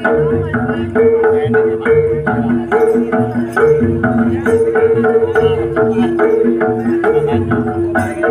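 Live Javanese gamelan accompaniment for a jaranan horse dance: hand-drum (kendang) strokes under a steady, repeating pattern of ringing tuned-percussion notes.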